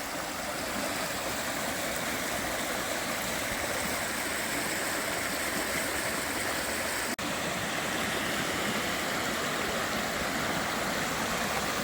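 Stream running high with winter rain, a steady rush of flowing water that briefly drops out about seven seconds in.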